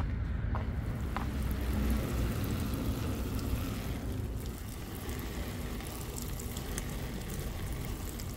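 Water pouring steadily onto garden plants and soil during watering, a little softer in the second half.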